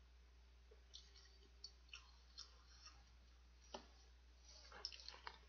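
Faint wet mouth clicks and smacks of someone chewing a mouthful of stir-fried spicy ramen noodles: a few scattered soft ticks, busiest near the end, over a low steady hum.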